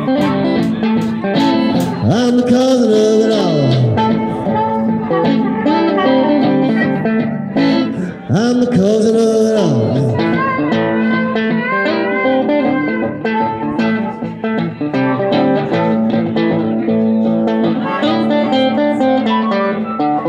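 Live acoustic blues instrumental: an acoustic guitar plays a steady rhythm while a harmonica plays lead over it. The lead swoops down in pitch twice.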